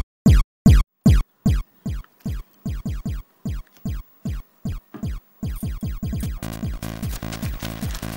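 Electronic dance music: a deep kick drum that drops in pitch on each beat, the beats coming faster and faster, then a full synth track joins about six and a half seconds in.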